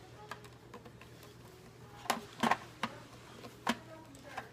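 Hard plastic vacuum-cleaner parts being handled and fitted together: a few scattered clicks and knocks, the loudest pair a little over two seconds in.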